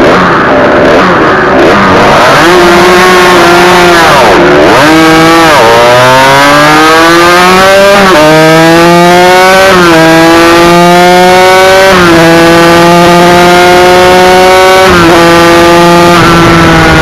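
Yamaha TZR 250 two-stroke twin racing motorcycle engine revving unevenly, dipping as the bike pulls away about four seconds in, then accelerating hard through the gears with upshifts about every two seconds, heard close up from the bike with heavy wind rush.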